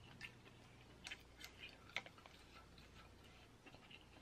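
Faint close-miked chewing: soft, scattered mouth clicks and smacks at the edge of silence.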